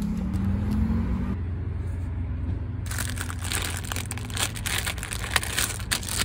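Soft plastic pack of Huggies baby wipes crinkling as a hand handles it and works at its lid. It starts as a quiet rustle, then about three seconds in turns into a busy run of small crackles and clicks.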